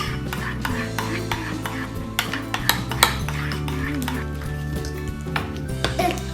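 A spoon stirring and scraping in a bowl of slime mixture, with irregular clicks and clinks against the bowl, over background music.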